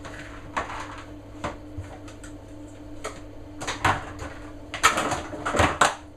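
Kitchen handling sounds at a mixing bowl: rustling and scattered clicks from ingredients and utensils, with a cluster of sharp clinks and knocks near the end, over a steady low hum.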